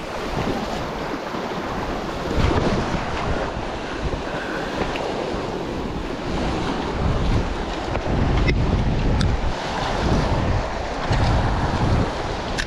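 Sea surf breaking and washing over shore rocks, with wind buffeting the microphone in gusts that swell several times.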